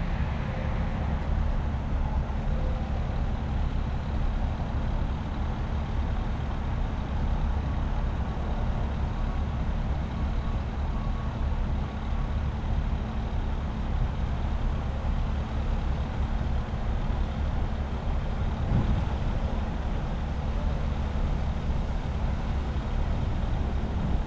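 Steady low rumble of a motor vehicle running, engine and road noise with a faint steady hum, unchanging throughout.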